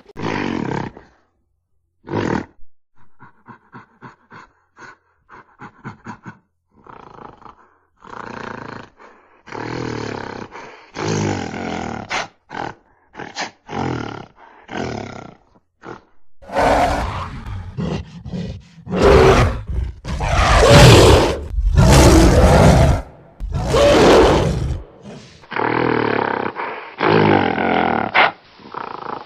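Gorilla roars and grunts: scattered short calls and a quick run of short grunts, building to a series of loud, long roars past the middle, then more calls near the end.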